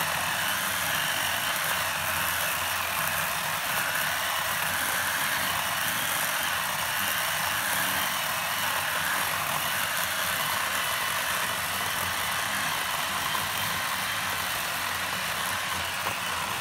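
Poulan electric chainsaw running steadily as it cuts through the trunk of a dead oak.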